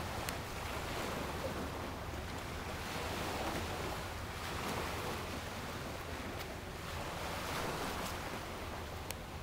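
Beach ambience: a rushing noise of wind and surf that swells and fades several times, over a low rumble of wind buffeting the microphone.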